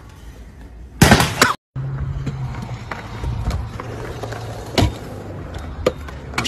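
A loud crash about a second in, then a stunt scooter rolling and clattering on skatepark concrete, with a sharp clack near five seconds as it lands.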